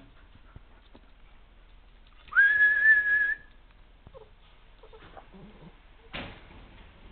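A single whistled note, rising quickly into a steady high pitch and held for about a second. A short knock follows a few seconds later.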